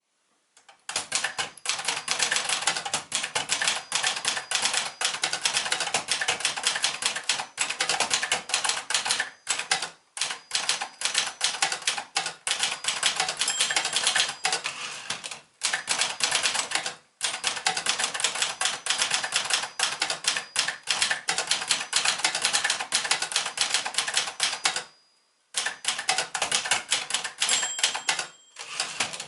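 1965 Brother De Luxe 895 typewriter being typed on at speed: a rapid, continuous clatter of key strikes, broken by a few short pauses and a longer one near the end.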